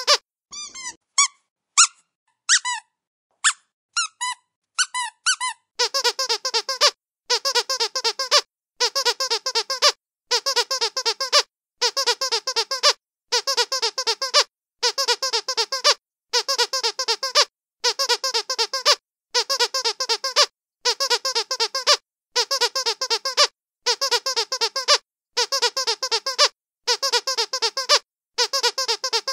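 Squeaky dog toy being squeezed: a few separate squeaks at first, then, from about five seconds in, a steady run of bursts of quick squeaks, each about a second long and coming about every second and a half.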